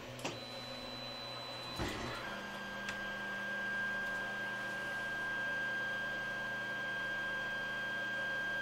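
Creality Ender 3 Pro 3D printer running through its auto-home: the stepper motors give a steady high whine with a low hum under it. A click comes about two seconds in, and there the tones shift to a new steady pitch.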